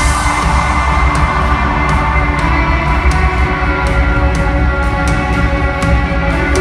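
Live rock band playing loud, with drums, bass and electric guitar and regular cymbal hits; no singing.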